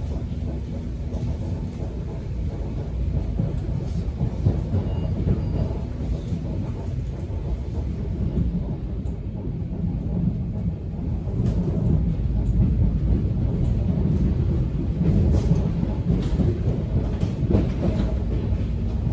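Subway train running, heard from inside the carriage: a steady low rumble with occasional sharp clicks and rattles, growing a little louder about two-thirds of the way in.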